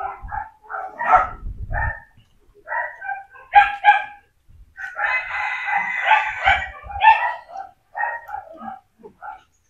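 A litter of young dachshund puppies whining and squealing, many short high-pitched calls overlapping, busiest a little past the middle.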